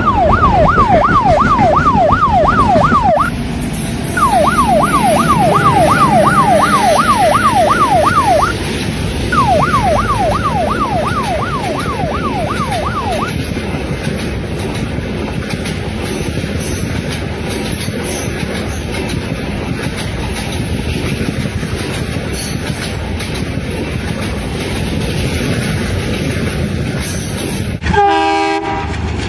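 Ambulance siren wailing in fast rising-and-falling sweeps, in three bursts over the first dozen seconds, over the steady rumble and clatter of a passing train. A short train horn sounds near the end.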